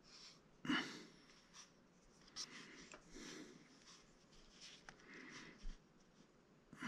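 Faint handling sounds of fingers working a clay-covered brass rod and thin wire, with small ticks and quiet breathing. One short, louder sound less than a second in.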